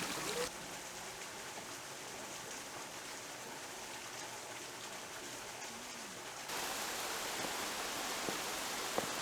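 Rushing water of a mountain valley stream, a steady even hiss. It drops abruptly in level about half a second in and comes back louder at about six and a half seconds.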